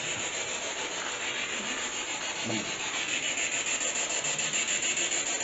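A steady, loud hiss, like a rushing rub, with a few faint low murmurs under it. It cuts off abruptly at the very end.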